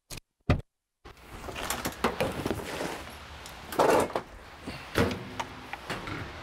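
Knocks and clatter of parts and materials being handled over steady room noise, the loudest knock about four seconds in, after two short clicks at the very start.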